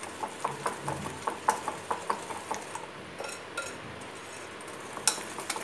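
Wire whisk beating a thick ghee-and-sugar mixture in a bowl, its wires clicking against the bowl in a quick run for about three seconds, then only a few scattered clicks, one louder near the end.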